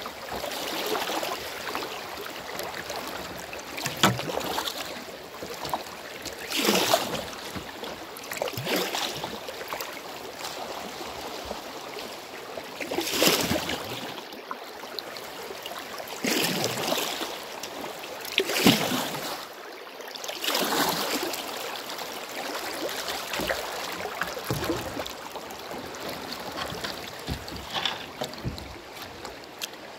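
Glacial mountain river rushing over rocks in a shallow riffle, with louder splashing swells every two to four seconds.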